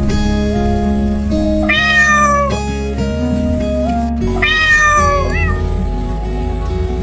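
Cat meowing twice, each meow sliding down in pitch, about three seconds apart, over soft background music.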